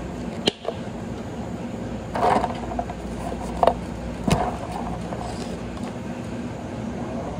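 A few sharp knocks and a short clatter over a steady low machine hum.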